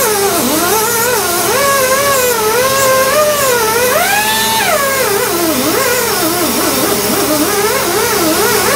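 Die grinder with an abrasive disc cleaning the deck surface of a cast iron LQ4 engine block. Its whine wavers in pitch as the disc is pressed on and worked across the metal, and it rises briefly about four seconds in as the load comes off.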